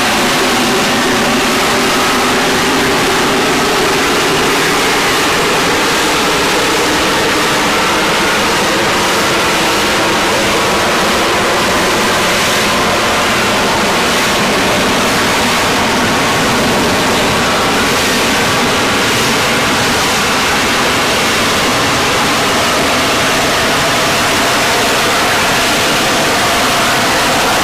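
Jet aircraft engine running, a steady loud rush of noise with faint humming tones that drift slowly in pitch.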